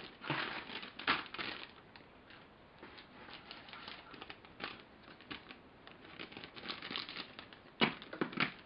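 Plastic model-kit sprues clicking and clattering as they are handled, with crinkling of their plastic packaging. Irregular light clicks and rustles, with a louder cluster of clicks near the end.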